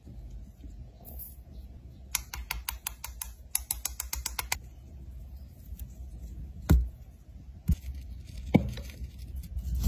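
A metal lipstick tube being shaken and tapped to empty out sand: a quick run of light clicks, about six a second, then several separate knocks as the tube is handled.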